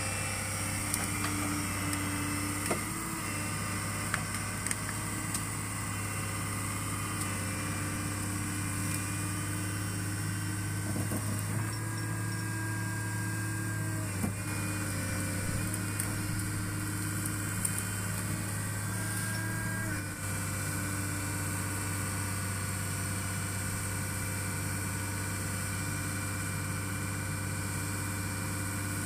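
Heavy diesel engine running steadily at a low, even pitch, with a few light knocks and clanks.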